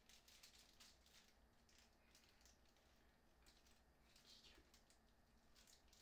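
Near silence, with faint scattered ticks and rustles of plastic packaging and keycaps being handled.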